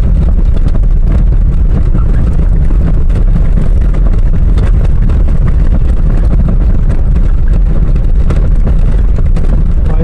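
Car driving over a dirt road with loose stones: a steady, loud low rumble of tyres and engine, with scattered small ticks of gravel.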